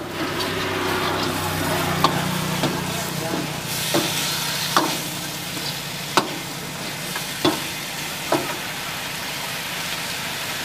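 Chicken masala sizzling in a hot iron wok while a metal ladle stirs and scrapes it. The ladle knocks sharply against the wok about seven times, every second or so.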